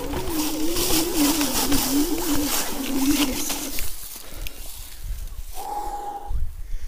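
Electric scooter hub motor whining under way, its pitch wavering up and down with speed, over rattling and tyre noise on a rough trail. The whine drops away about four seconds in, and a short, steady, higher whine follows near the end.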